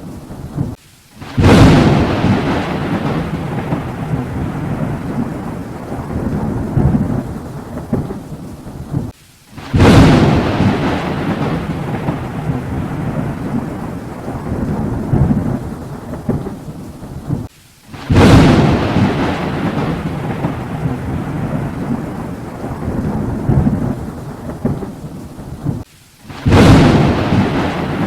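Thunder strikes repeating about every eight seconds, four in all. Each is a sudden sharp crack that rolls on as a long, fading low rumble, with a brief silent gap just before the next one.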